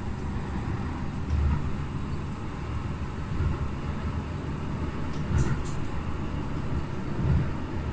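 Running noise of an old Utrecht sneltram (SIG-built articulated light-rail car) heard from inside as it travels along the track: a steady low rumble of wheels on rail with irregular low swells. A couple of faint brief high clicks come about five and a half seconds in.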